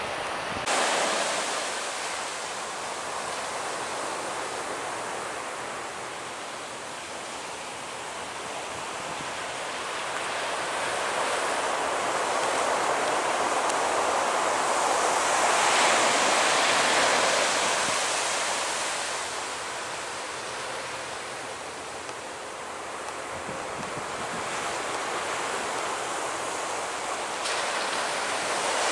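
Surf on the beach with wind on the microphone: a steady rush that swells and fades slowly, loudest about halfway through and again near the end.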